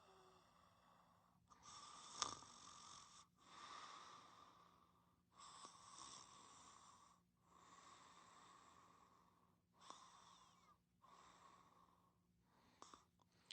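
Faint snoring breaths of someone asleep, one airy breath after another, each lasting about one and a half to two seconds, with short pauses between them.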